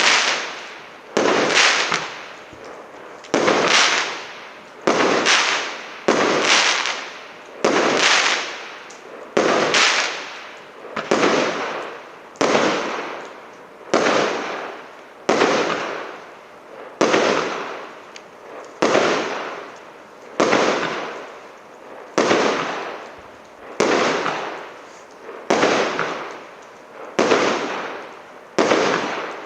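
SL326200 'Marathon' firework battery firing shot after shot at a steady pace, about one every one and a half to two seconds. Each shot is a sharp bang that fades out over a second or so.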